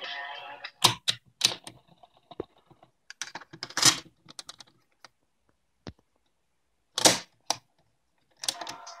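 Push-button clicks and clunks of a Cassette Boy toy cassette walkman: music stops about a second in, a string of separate sharp clicks and knocks follows as its piano-key buttons are pressed, and music starts again near the end.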